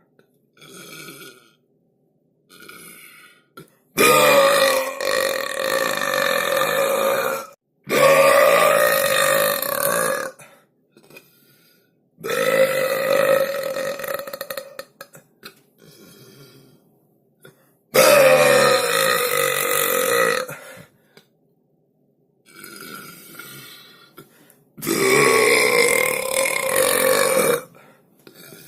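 A person belching repeatedly: five long, loud burps, each lasting about two to three seconds, with pauses between them. A few short, faint sounds fall in the gaps.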